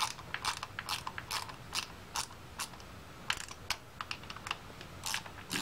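Hand ratchet clicking as a small bolt is run down toward snug, in sharp, evenly spaced clicks a little over two a second.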